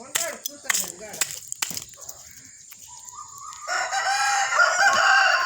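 A rooster crowing once: one long crow that begins a little past halfway through and is the loudest sound here, with short voice-like sounds at the start.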